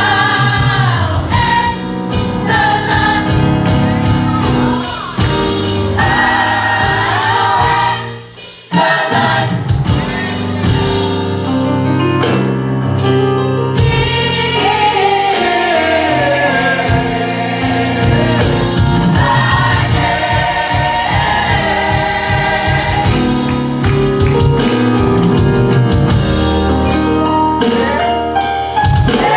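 Gospel music: a choir singing held, wavering lines over steady instrumental accompaniment, with a brief break about eight seconds in.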